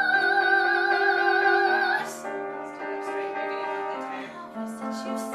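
A teenage girl sings a high note with vibrato in a classical musical-theatre style, over a slightly out-of-tune piano. About two seconds in, the voice stops and the piano plays on alone.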